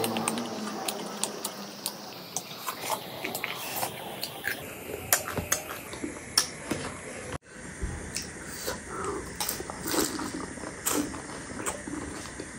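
Close-up eating sounds of spicy chatpate and panipuri: many short, sharp crunches and clicks with wet chewing in between.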